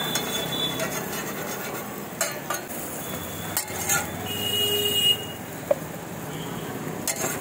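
Steel spatula scraping and knocking on a flat iron tawa as a bread omelette is flipped and pressed down, with several sharp clicks over the sizzling of the egg. A brief horn-like tone sounds about halfway through.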